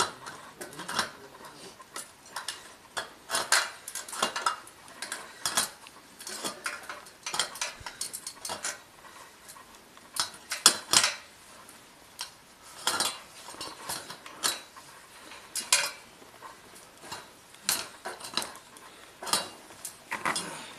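Crampons and climbing hardware clinking and scraping on the rungs of an aluminium ladder as a climber steps up it: irregular sharp metallic clinks, one or two a second.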